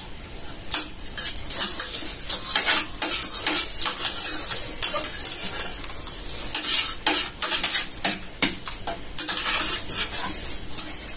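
Irregular clinking and clattering of plates and cutlery.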